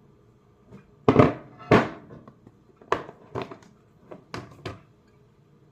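Kitchenware clunking while soup is ladled from a pot into glass containers: about seven knocks and clunks, the two loudest about a second in, then lighter taps spread over the next few seconds.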